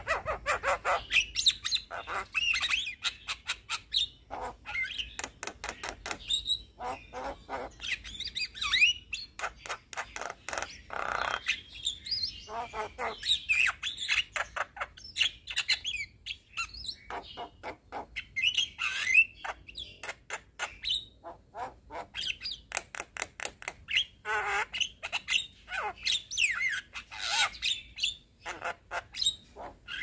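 Young Javan myna (jalak kebo) singing in full voice: a fast, unbroken run of sharp clicks mixed with short chirping notes that glide up and down.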